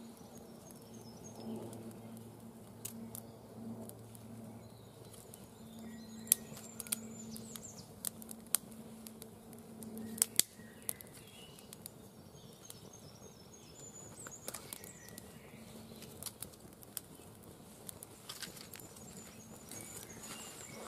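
Small fire of dry twigs crackling, with sharp snaps and pops scattered irregularly, the loudest a few around six and ten seconds in. Birds chirp faintly in the background.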